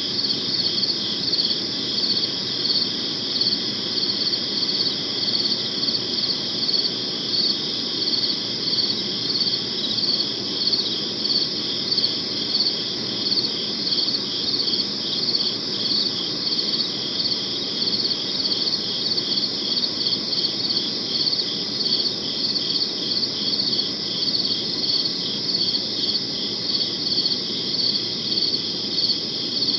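Crickets chirping at night in a steady, unbroken rhythm of high-pitched pulses, over a soft low background hum.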